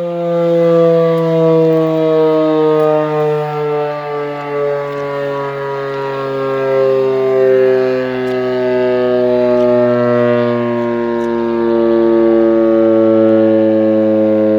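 Outdoor civil-defense warning siren sounding loudly during its test, a chord of several tones that slides slowly lower in pitch.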